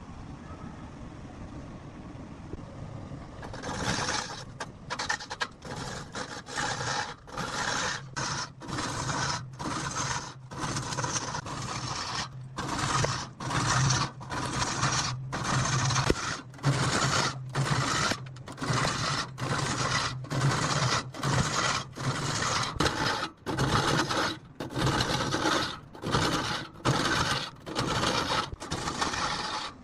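Repeated scraping strokes of a tool on rosewood, about one a second, starting a few seconds in, over a steady low hum.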